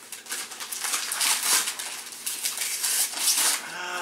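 Wrapping paper being torn and crumpled off a present, in quick irregular rips and rustles.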